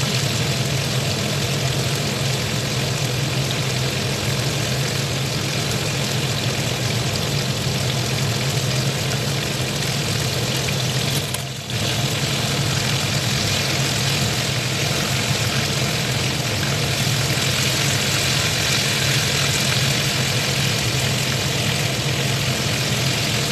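Breaded fish pieces deep-frying in a pan of hot oil: a steady sizzle with a low hum beneath it, dipping briefly about halfway.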